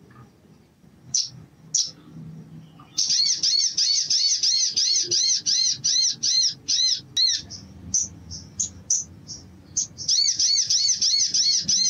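Male olive-backed sunbird singing. It gives a few sharp chips, then a fast run of high, repeated rising-and-falling notes, about four a second, for some four seconds. More scattered chips follow, and a second fast run starts near the end.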